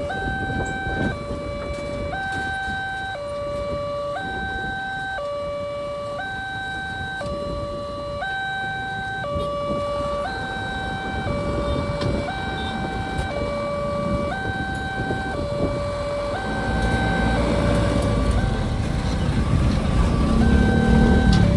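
Railway level-crossing alarm siren sounding a two-tone warning, switching between a higher and a lower note about once a second. A low rumble grows underneath it in the last few seconds.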